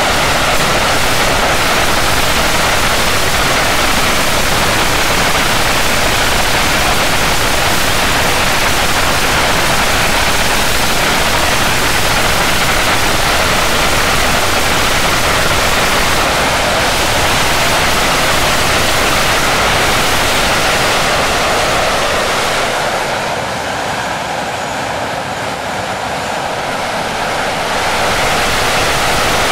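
English Electric Lightning's Rolls-Royce Avon turbojets running at high power with reheat lit: loud, steady jet noise. Past the middle it falls away and thins for several seconds, then rises again near the end.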